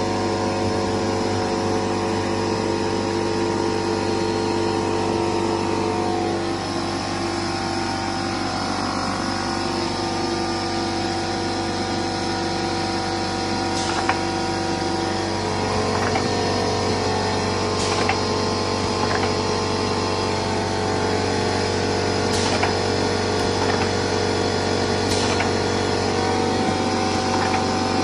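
Laguna Smartshop J8 CNC machine running, its 6 HP air-cooled spindle and drives giving a steady hum with several held tones that shift in pitch about 6 and 15 seconds in. Scattered sharp clicks come through in the second half.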